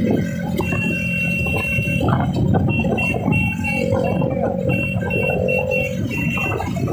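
Rumble of a crowd of motorcycles and carts moving along a road, mixed with music that has a plucked-string sound. From about a second in, a run of short, high-pitched toots repeats in quick dashes.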